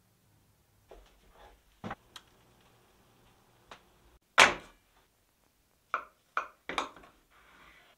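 A knife pricking a raw pastry lid with a few soft taps, then one sharp, loud knock, then a knife breaking through a crisp baked pie crust in three quick crunches, followed by a short soft scrape.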